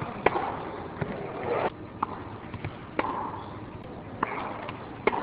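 Tennis balls struck by rackets in a rally: a sharp pop roughly once a second, with crowd noise in the background.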